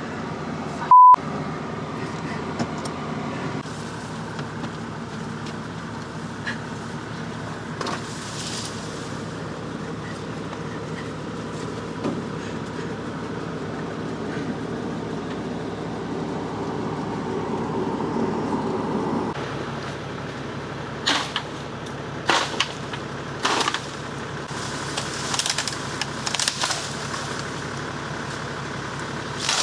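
Toyota Land Cruiser 80 series engine running steadily, with a short, loud single-pitch beep about a second in. After about 20 seconds the engine drops away and a series of sharp snaps and cracks follow, bamboo being broken and pushed aside.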